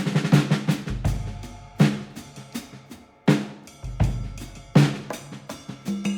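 Background music track with drums: sharp drum hits over a low bass, in a repeating pattern.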